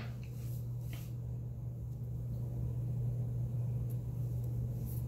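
A steady low hum, with a couple of faint taps in the first second.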